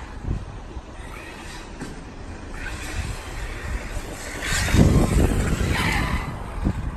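Arrma Typhon radio-controlled car's electric motor whining in short rising bursts as it accelerates over tarmac, with tyre noise. It is loudest about five seconds in, with a low rumble as the car comes close.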